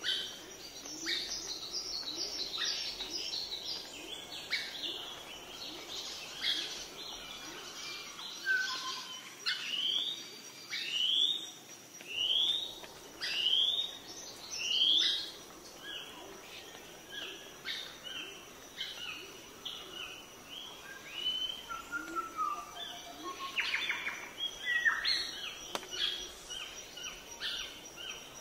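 Wild birds singing, with a series of about five sharply rising calls in a row in the middle and many shorter notes around them, over a thin steady high-pitched tone.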